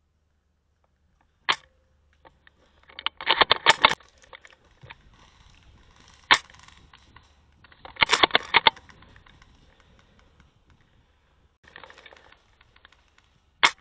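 Airsoft gunfire: single sharp shots about a second and a half in, about six seconds in and near the end, and two quick bursts of rapid automatic fire about three seconds in and eight seconds in.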